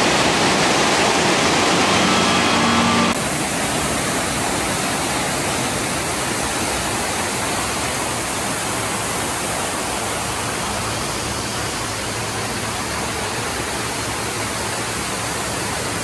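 Steady rush of water swirling around a walk-through water vortex tunnel, a loud even noise that drops a little in level about three seconds in.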